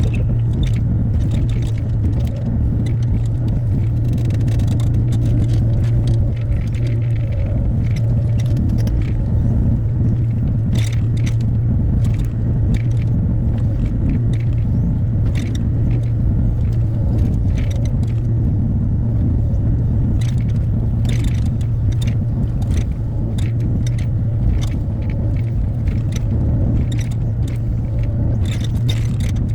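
Hyundai HX60A excavator's diesel engine running steadily at working revs, with irregular clicks, knocks and scrapes from the machine at work.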